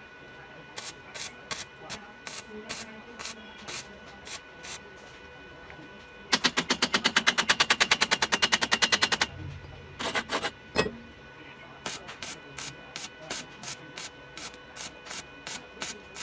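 Background music with a steady beat of about three hits a second. About six seconds in, a loud, very fast rattle of evenly spaced hits lasts about three seconds, followed by a few single sharp knocks.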